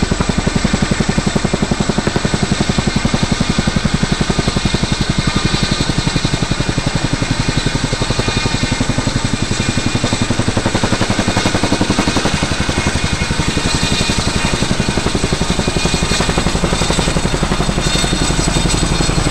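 CH-47 Chinook tandem-rotor helicopter in flight: rapid, even rotor-blade chop with a steady high turbine whine, loud throughout and growing slightly heavier near the end.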